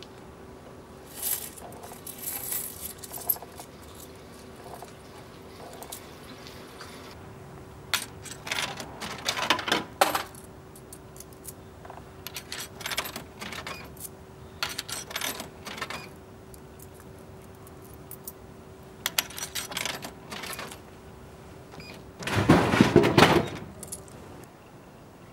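Coins clicking and rattling into a drink vending machine's coin slot in several separate bursts, then near the end a loud clunk and rumble as the bottle drops into the dispenser tray. A faint steady hum runs underneath and stops just before the drop.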